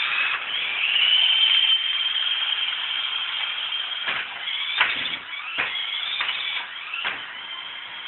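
Electric drive motor and gearing of a converted toy remote-control car whining at a high pitch as it drives over carpet. In the second half come several sharp knocks as it bumps into furniture and backs up to turn.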